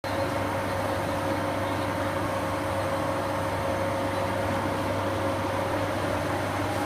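Steady factory workshop ambience: a constant machinery hum with a steady mid-pitched tone over an even hiss, unchanging throughout, with no distinct knocks or clanks.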